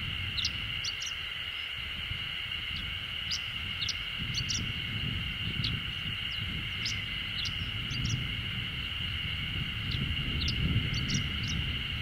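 Chestnut-eared bunting singing: quick phrases of short, sharp, high notes, four of them a few seconds apart, over a steady high buzz.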